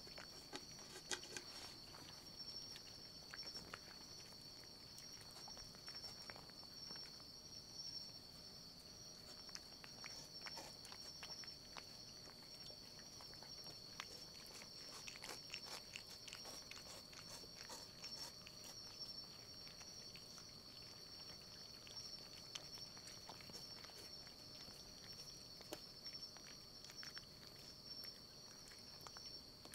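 Near silence: quiet room tone with a steady high-pitched whine and scattered faint ticks and clicks.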